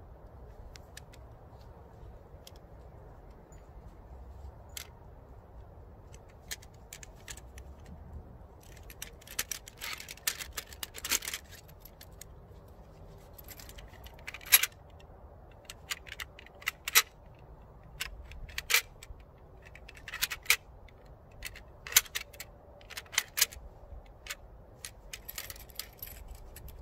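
Metal clicks and clinks from a hand-held steel zipline passive braking trolley being handled: its plates and cable-tethered safety pin knocking and sliding against each other. The clicks are sparse at first and come thick and sharp in the second half.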